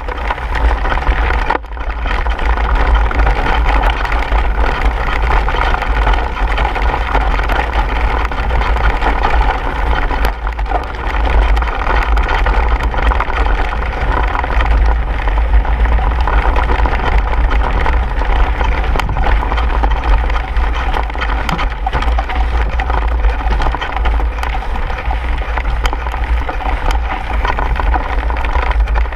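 Mountain bike rolling downhill over a dirt and gravel trail: continuous tyre and trail noise with scattered small knocks, over a steady low wind rumble on the microphone.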